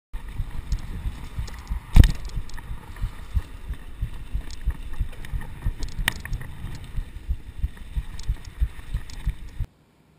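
Mountain bike ridden over a bumpy dirt trail, heard from a chest-mounted GoPro: a continuous rumble of irregular low knocks and rattles. A sharp clunk comes about two seconds in, the loudest moment, and another about six seconds in. The sound cuts off suddenly near the end.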